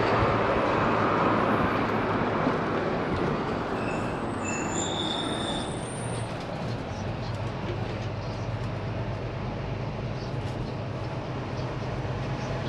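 Steady running noise of a moving vehicle with a low hum underneath, and a few brief high squeals between about four and six seconds in.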